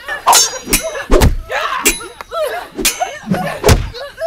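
Staged fight sound: a quick, uneven series of punch and kick impacts, about six hits, with short pitched cries between them.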